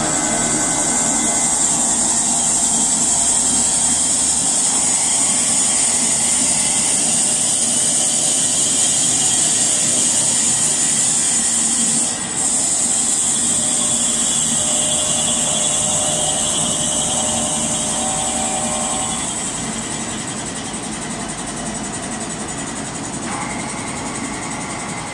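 Csepel MC 1250 CNC machining centre running, with a steady high-pitched hiss over its mechanical noise. The hiss drops out for a moment about twelve seconds in and fades in the last few seconds.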